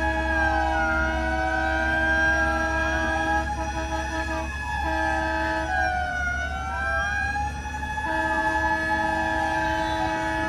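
Several fire-truck sirens wailing, each rising and falling out of step with the others, over a steady horn-like tone that breaks off about four and a half seconds in and sounds again about eight seconds in, with a low engine rumble underneath.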